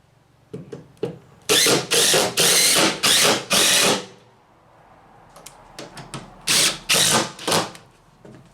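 Impact drill driving screws into plywood in short runs: four bursts between about 1.5 and 4 seconds in, then three more at about 6.5 seconds, with light handling clicks between.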